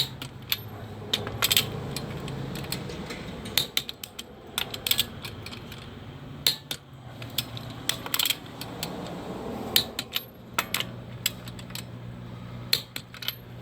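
Torque wrench ratcheting and clicking in groups as the wheel's lug bolts are torqued to 100 ft-lb in a star pattern, with a steady low hum underneath.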